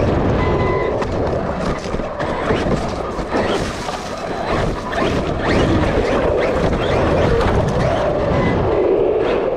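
Onboard sound of a Traxxas RC monster truck driving: steady wind noise and tyre rumble as it runs over pavement and through grass and leaves.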